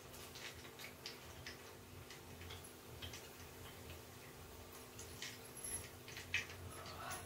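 Kakara fritters frying in hot oil in a kadai, with small irregular crackles and pops of spitting oil, and now and then a light clink of the slotted spoon against the pan.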